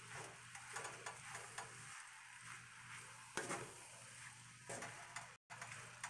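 Wooden spatula stirring and scraping fried rice in a cast-iron skillet, in irregular strokes over a faint, steady sizzle of the rice frying.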